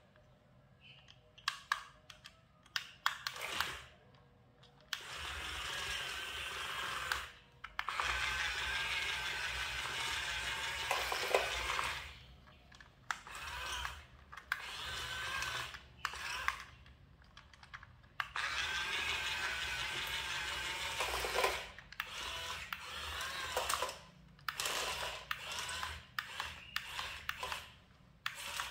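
Huina remote-control toy excavator's small electric gear motors whirring in spells of a few seconds as the arm and bucket move, with short clicks between spells.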